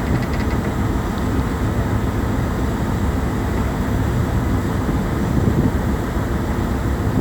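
Steady low rumble of a boat under way, its engine running evenly at cruising speed.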